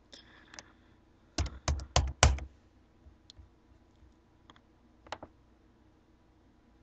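Computer keyboard keystrokes as a folder name is typed: a quick run of four loud key presses about a second and a half in, with a few fainter single clicks before and after.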